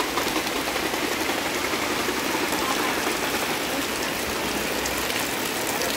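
Steady rain falling on the wet pavement and the tarpaulin canopies of market stalls, an even, unbroken hiss.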